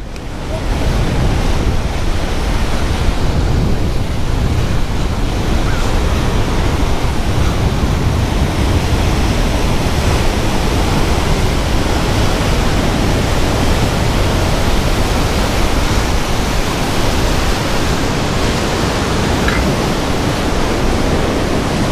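Strong wind buffeting the microphone over ocean surf breaking below, a steady, loud rushing noise with no pauses.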